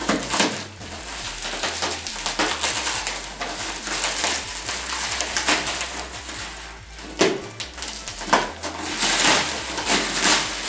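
Plastic wrapping crinkling and rustling as a knife cuts open a wrapped cardboard box, in irregular scraping strokes.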